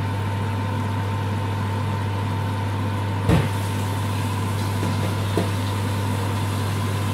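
Steady low hum, like a running motor, with a single knock about three seconds in.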